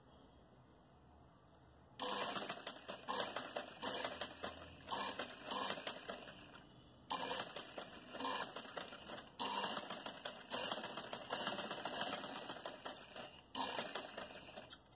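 Black domestic sewing machine running as it stitches a zip onto fabric, starting about two seconds in, pausing briefly about halfway, and stopping at the end.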